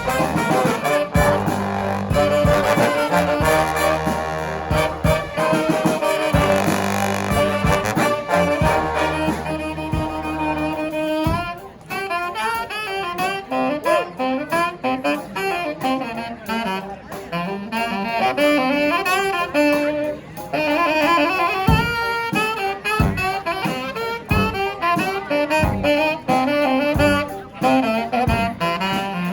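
Street brass band playing live: the full band with sustained low bass-horn notes and drums, then about eleven seconds in the band drops out, leaving a single horn melody over the drums.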